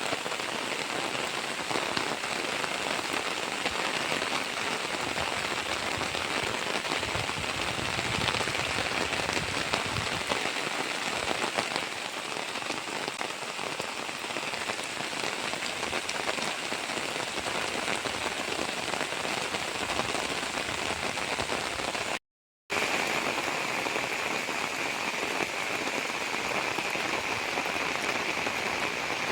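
Steady rain falling, a dense patter of drops on surfaces. It breaks off in a short silent gap a little over twenty seconds in, then carries on.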